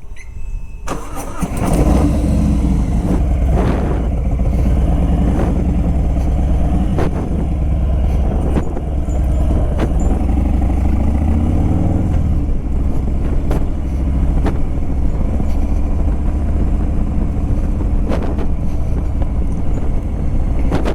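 Motorcycle engine coming in loudly about two seconds in and running as the bike pulls away, its pitch rising as it accelerates around ten seconds in.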